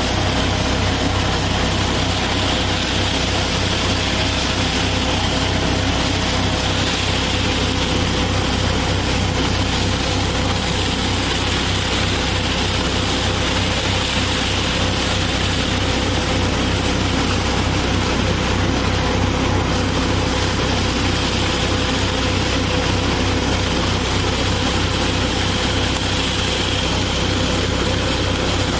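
Tractor-driven nut-harvesting machine running steadily: the tractor engine's low hum under the machine's even hiss.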